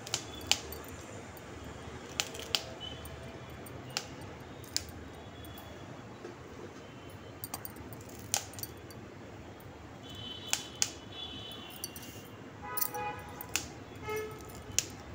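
Fresh green chillies snapped by hand and dropped into a steel mixer-grinder jar: about a dozen sharp, scattered clicks and snaps over a faint steady background hum.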